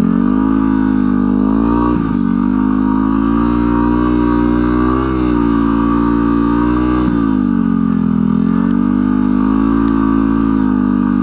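Single-cylinder four-stroke dirt bike engine pulling under steady throttle, its pitch rising and dipping a little and settling slightly lower about seven seconds in, as the rear tyre spins in snow with almost no traction.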